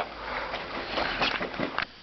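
Water splashing and sloshing in a bathtub as geese bathe, with several sharper splashes in the second half.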